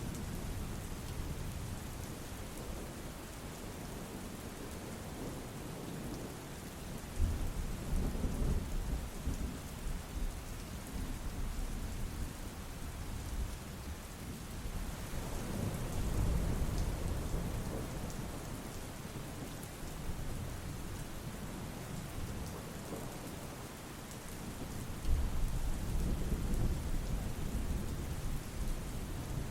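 Steady rain with low thunder rumbling three times: about seven seconds in, around the middle, and near the end.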